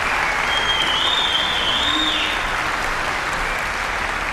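Large concert audience applauding steadily, with a shrill high whistle held over the clapping from about half a second in for nearly two seconds; the applause eases slightly near the end.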